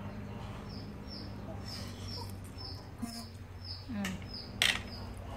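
A small bird chirping over and over, short high chirps about twice a second, over a low steady hum. A single sharp click about four and a half seconds in.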